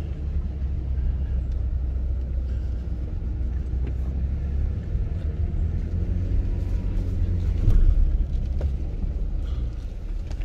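Low, steady rumble of a vehicle's engine and tyres on a rough dirt road, heard from inside the cabin while climbing slowly up a steep grade, with a brief louder surge about eight seconds in.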